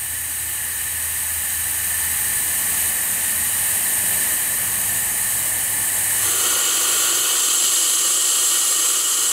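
Compressed air hissing out of the smoke box of a 5-inch gauge model steam locomotive with the regulator open, escaping at the steam-pipe fittings, the sign of leaking joints in the steam circuit. The hiss grows gradually louder and becomes fuller about six seconds in.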